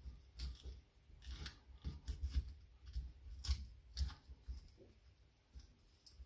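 Secateurs snipping out a woodpigeon's small rib bones: a string of irregular sharp clicks, with soft low knocks in between.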